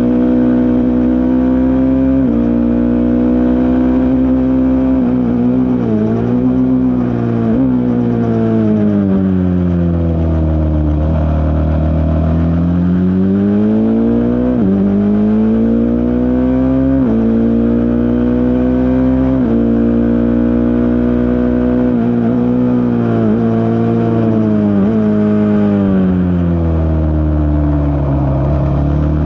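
Single-seater race car engine at full throttle on a lap, its pitch climbing and then dropping sharply at quick upshifts every two to three seconds. Twice it falls away under braking, with a flurry of downshift blips about six seconds in and again near the end. Around ten seconds in the pitch sinks low and climbs slowly back out of a slow corner.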